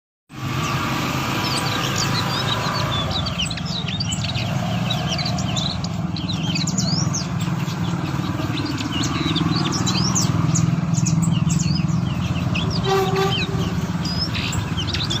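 Sumatran niltava calling: a quick run of short, high chirps and thin whistled notes, many of them brief falling sweeps. A steady low rumble runs underneath throughout.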